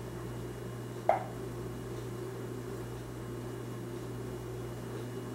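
One sharp tap about a second in, a utensil knocking against the plate of an electric omelette maker, over a steady low hum.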